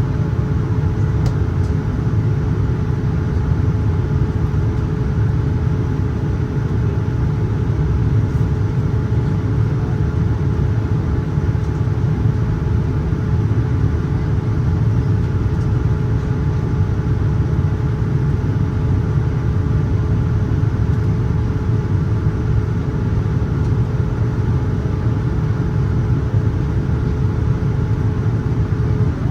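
Boeing 787-9 cabin noise in flight: a steady low rumble of airflow and engines with a constant hum held throughout, which drops out at the very end.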